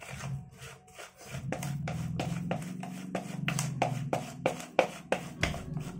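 A plastic spatula scraping round a plastic bowl as it stirs a damp ground-pellet carp-bait mix, about three quick strokes a second. Background music plays underneath.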